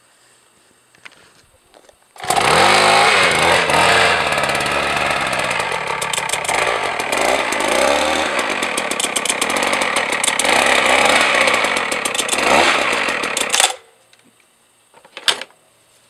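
Petrol-engined percussion hammer starting up about two seconds in, its engine note rising and then running loud and uneven for about eleven seconds before cutting off abruptly. A single sharp knock follows shortly after.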